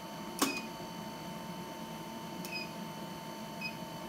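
Induction heater unit: a sharp click about half a second in, then short high electronic beeps repeating about once a second from two and a half seconds in, over a steady faint whine. The owner takes the beeping to be the machine's normal, intended behaviour.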